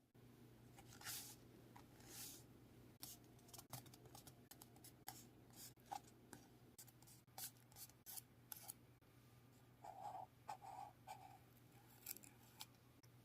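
Faint hand-journaling sounds: scattered small snips, taps and brief scratchy rubs of paper, with a cluster of short sounds about ten seconds in, over a low steady hum.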